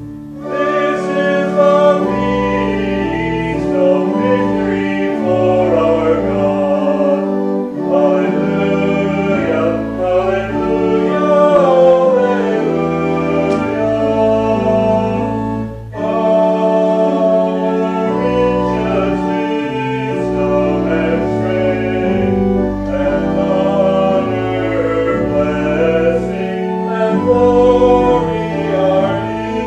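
Organ playing sustained chords while voices sing a hymn along with it, phrase by phrase, with a short break about halfway through.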